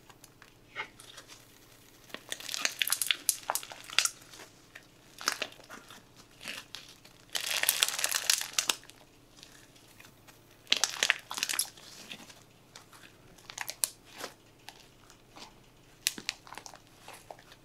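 Stretchy green slime being stretched, folded and squeezed by hand in a plastic bowl, giving off spells of sticky crackling and popping clicks, densest about halfway through.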